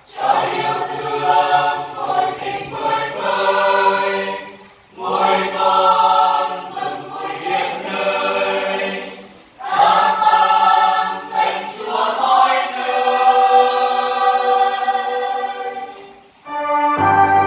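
Mixed church choir singing a hymn in Vietnamese, in four phrases with short breaths between them.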